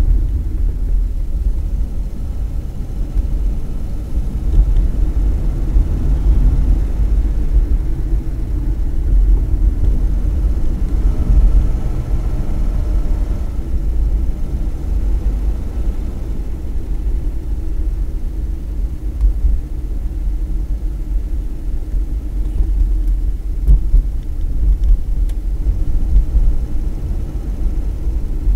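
Low, steady in-cabin rumble of a Volvo 264GL driving at about 48 km/h, its B27E PRV V6 engine running very quietly under the road noise.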